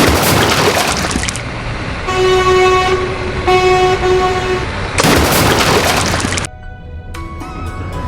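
A vehicle horn tooting twice in two long blasts, between rushing noise bursts, with background music near the end.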